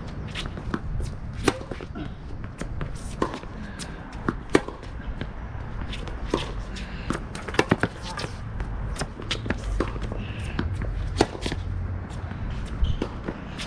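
Tennis groundstroke rally on a hard court: sharp pops of rackets striking the ball and the ball bouncing, irregularly spaced, some in quick pairs.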